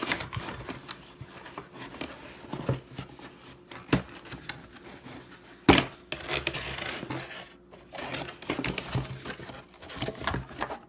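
Plastic vacuum cleaner parts being handled and turned over: irregular clicks, scrapes and rustling, with a sharp knock about four seconds in and a louder one near six seconds.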